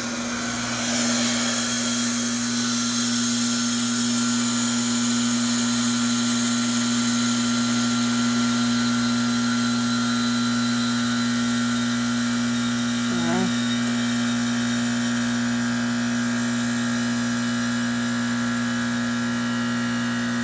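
Trane heat pump outdoor unit running in forced defrost: the compressor hums steadily with a hiss of refrigerant flow that swells about a second in, while the outdoor fan stays off.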